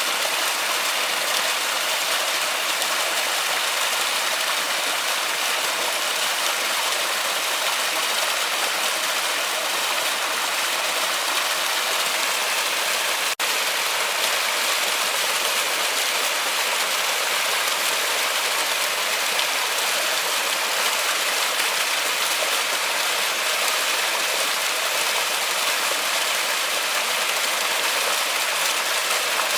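Waterfall in a forest: a steady, even rush of falling water, with a split-second dropout about halfway through.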